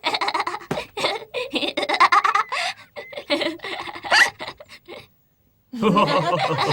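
Several cartoon characters laughing together, broken by a short pause about five seconds in.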